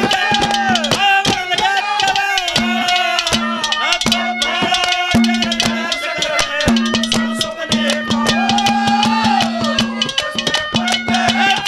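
Live ragni accompaniment: brisk drumming with a rattling percussion, under a wavering melodic line and a low held note that breaks off and comes back.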